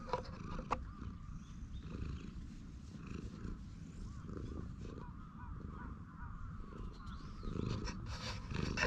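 Tabby cat purring steadily while being stroked, a contented purr. A couple of sharp clicks come in the first second, and the sound grows louder near the end.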